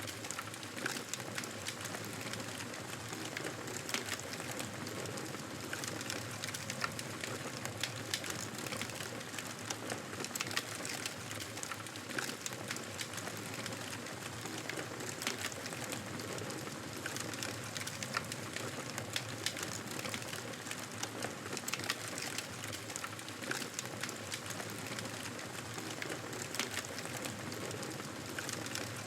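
Campfire burning and crackling: a steady hiss dotted with frequent, irregular sharp pops and snaps.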